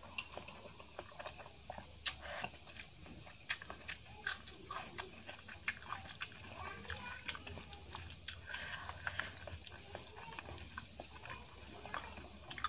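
Close-up eating sounds: wet chewing and lip smacks, and fingers squishing and mixing rice with curry on a steel plate, heard as a string of short, sticky clicks.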